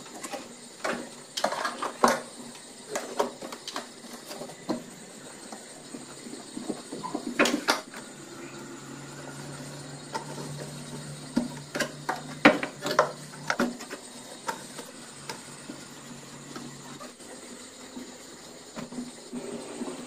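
A cloth wiping and rubbing the plastic walls and shelves inside a refrigerator, with irregular small knocks and clicks. A low hum runs through the middle for several seconds.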